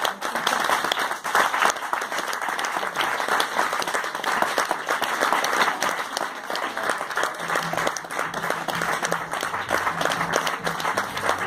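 Theatre audience applauding steadily, many hands clapping at once, at the end of the act.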